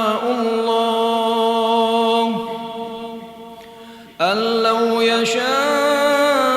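A man's solo voice reciting the Quran in melodic tajweed style, holding a long drawn-out vowel on one steady pitch that tails off over about two seconds. A little past the middle, a new phrase begins sharply on another long held note that rises slightly in pitch.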